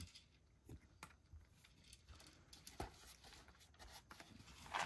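A cat eating from a shallow dish: faint, scattered clicks and crunches of chewing, with a brief rustle near the end.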